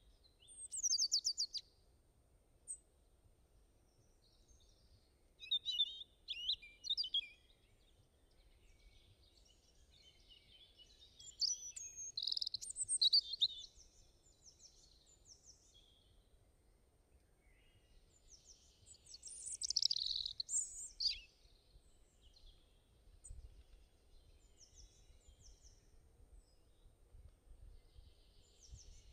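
Birds chirping in several short bouts of quick, sweeping calls.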